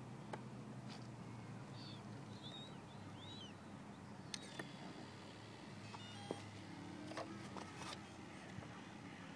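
Faint outdoor ambience by still water: a steady low hum, a few short bird chirps about two to three seconds in, and scattered small clicks.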